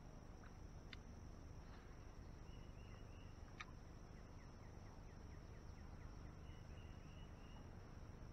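Faint swamp ambience: a steady, high-pitched insect drone and birds chirping in short repeated runs. Two sharp clicks, one about a second in and another a few seconds later.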